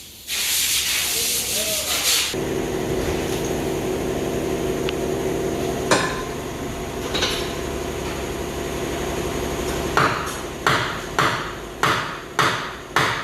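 A short burst of air-like hiss, then a steady machine hum, then from about ten seconds in a run of hammer blows, about two a second: a rear wheel stuck to its hub with dust and rust being hammered loose.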